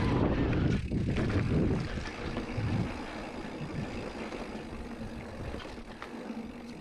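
Mountain bike tyres rumbling over a rooty dirt trail, with wind buffeting the helmet camera's microphone; the heaviest jolts come in the first two or three seconds, then the ride goes smoother and quieter with a faint steady hum underneath.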